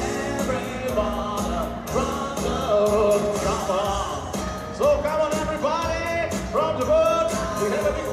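A song with a singing voice over a steady beat.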